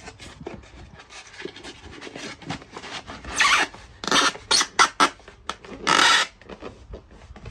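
Foil-faced polyurethane insulation board scraping and rubbing as it is forced into a tight gap in a timber floor frame and pressed flat by hand. Light scraping at first, then a run of short, louder scrapes from about three seconds in, the longest near the six-second mark.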